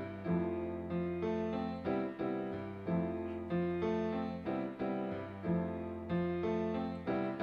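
Piano playing an instrumental passage, chords struck in a steady rhythm about every half second.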